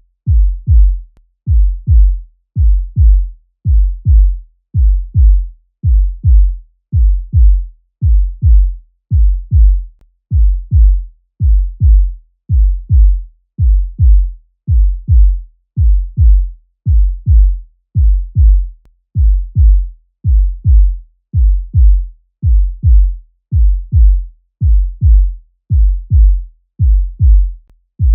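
Human heartbeat sound effect: low double thumps, lub-dub, repeating in a steady, even rhythm.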